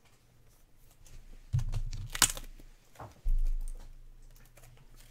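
Trading cards being handled at a desk: a dull thump about a second and a half in, a sharp crisp click soon after, and another dull thump a little after three seconds, with faint rustling between.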